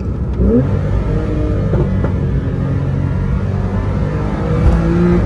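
A Porsche 911 Carrera T's 3.0-litre twin-turbo flat-six, heard from inside the cabin, running hard under acceleration. Its pitch climbs sharply about half a second in, then holds, with a brief thud and a change in note near the end.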